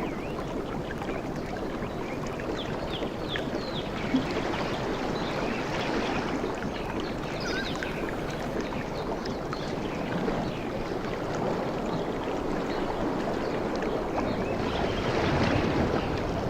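Surf washing onto a beach in a steady wash of noise, swelling near the end, with short high chirps scattered through the first half.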